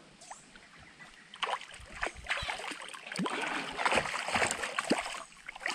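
A large hooked fish thrashing and splashing at the side of a plastic kayak as it is hauled aboard, with water slapping and knocks against the hull, starting about a second and a half in.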